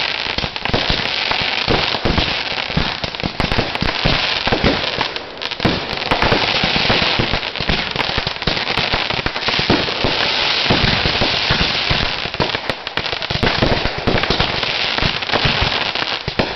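Fireworks going off: a dense, continuous crackle of rapid pops over a steady hiss.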